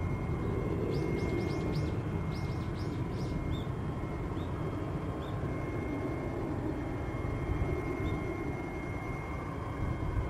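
Distant jet airliner climbing away, a steady low rumble of its engines. Birds chirp over it, a quick run of high chirps in the first few seconds and a few single notes later.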